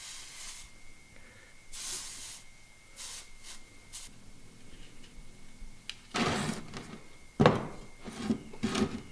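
Cloth rag rubbing and rustling over a freshly soldered copper pipe and brass shower-valve body, wiping the flux off the warm joint, with scattered knocks as the assembly is handled and set down on wooden blocks; the sharpest knock comes about seven and a half seconds in.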